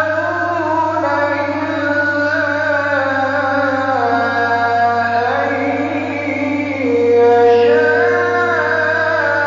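A man's voice reciting the Quran in the melodic tajweed style, drawing out long, ornamented notes with no pause, over a steady low hum. About seven seconds in, a long held note gets louder.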